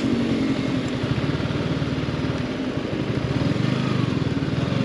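Yamaha R15 V4's single-cylinder engine running at low revs in slow, stop-and-go traffic, its steady firing pulses close to the microphone.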